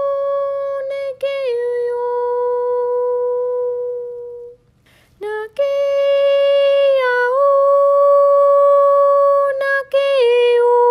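A single voice humming long held notes with no words, each note steady, sliding down a little about a second in. It breaks off for about a second just before the middle, comes back on a slightly higher note, then slides down again near the end.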